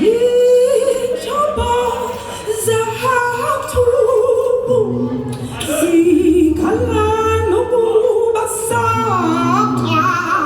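A woman singing a cappella in long, gliding held notes, with beatboxed percussion of low thumps and sharp hits beneath.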